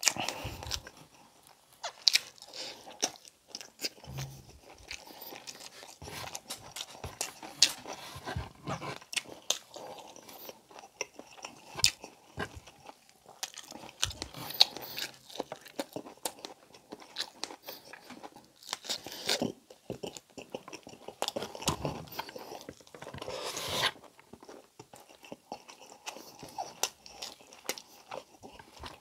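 Close-miked chewing and mouth sounds of a person eating braised pork belly (pork humba) with rice: a steady stream of short clicks and smacks as the meat is bitten and chewed.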